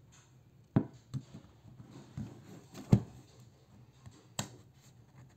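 Handling noises from a cardboard tube can of refrigerated biscuit dough: about five sharp taps and clicks as the can is turned and a fingernail picks at its paper wrapper, the loudest about three seconds in.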